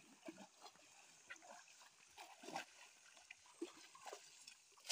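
Faint, irregular water splashing and sloshing as a cast net is dragged through shallow water by someone wading ashore, with a sharp click at the very end.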